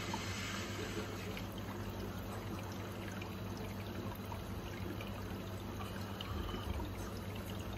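Aquarium water trickling steadily, with a steady low hum underneath.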